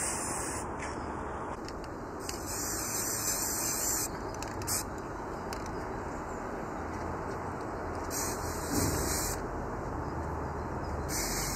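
Aerosol spray can of white primer spraying in three short bursts: about two seconds in for nearly two seconds, about eight seconds in for just over a second, and again briefly near the end. A steady background noise runs underneath.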